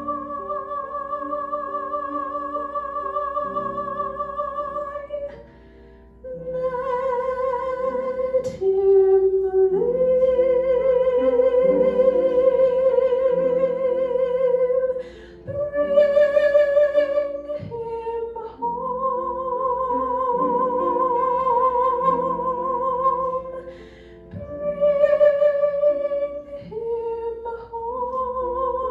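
A woman sings a slow ballad into a microphone over an instrumental backing. She holds long notes with vibrato, several seconds each, with short breaths between phrases.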